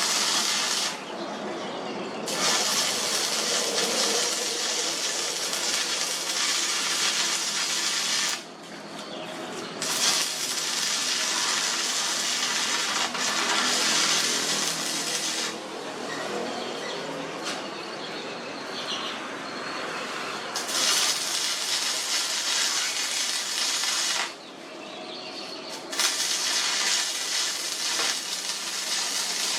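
Electric arc welding: a steady crackling hiss from the welding arc, laid down in several runs of a few seconds each with short pauses between beads.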